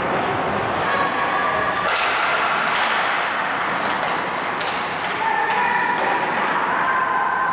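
Ice hockey play on a rink: a steady wash of rink noise broken by several sharp clacks and thuds of sticks, puck and boards.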